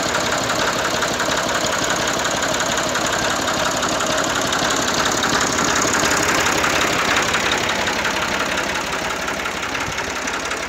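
1981 IMT 540 tractor's diesel engine idling steadily.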